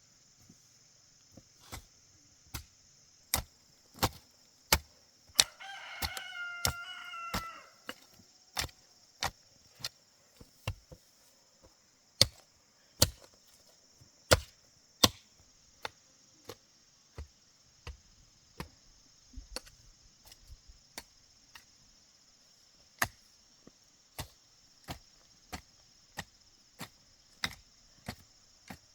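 A hand tool striking over and over at about three blows every two seconds, with a short break about eleven seconds in and softer blows in the second half. A rooster crows once about six seconds in.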